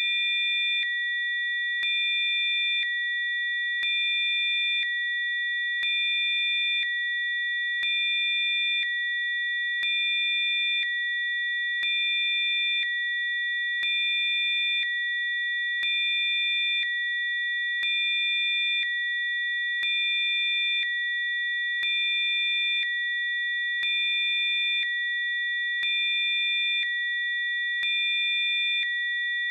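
Electronically generated sine tones played as Rife frequencies: several high-pitched pure tones held steadily together, with a faint extra tone and a small change in loudness switching on and off about once a second, each switch marked by a slight click.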